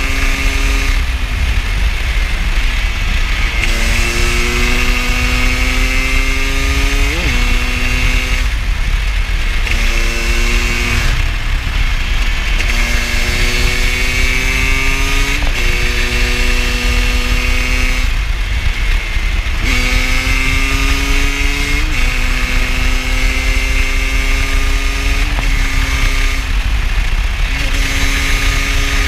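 KTM 250 supermoto engine pulling under throttle, its pitch climbing slowly for several seconds at a time, then dropping away briefly as the throttle closes, over and over. A heavy steady rumble of wind on the microphone runs underneath.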